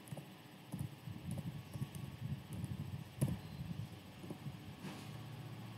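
Faint computer keyboard typing: scattered single key clicks as a word is typed out letter by letter. A steady low hum comes in about five seconds in.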